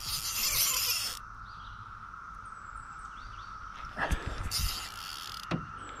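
Steady drone of a Brood X periodical cicada chorus. Two bursts of hissing noise, each about a second long, come at the start and about four seconds in, along with a few light knocks.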